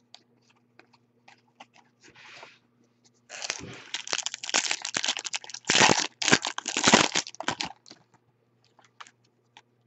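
Hands handling trading cards and a foil pack wrapper: light card clicks, then a few seconds of loud crinkling and crackly rustling that stops near the end.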